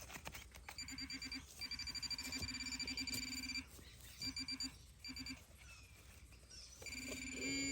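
Metal detector target tone: a buzzy electronic beep at one steady pitch that stutters in rapid pulses, holds for a couple of seconds, breaks off and pulses again, then sounds steadily near the end as the coil passes over a buried piece of scrap metal.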